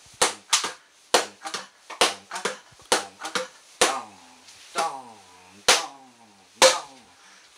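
Plastic drink bottles used as taiko-style drumsticks striking a hard surface in a slow rhythm. The hits come about twice a second at first and slow to about one a second. Several of the later hits are followed by a short falling tone.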